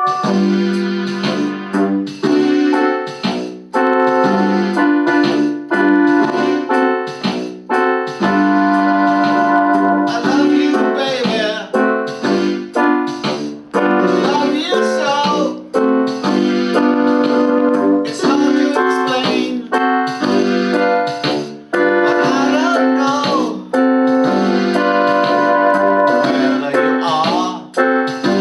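Electronic keyboard playing in a piano voice: chords with melodic runs of quickly struck notes.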